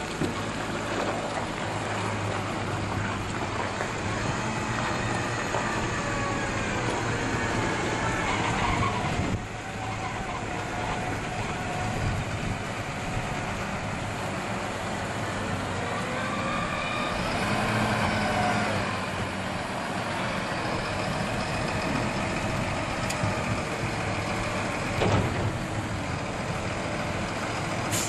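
Tractor engine running under load while it powers a hydraulic tipping trailer, with the engine note rising and falling a few times as sugar beet slides out onto a heap. A sharp knock comes near the end.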